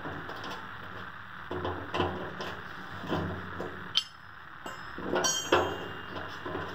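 Small metal parts being handled: light clicks and knocks, a sharp metallic click about four seconds in, and a louder clink with a brief high ring a moment later, as the loosened antenna nut, socket tool and antenna base are worked off.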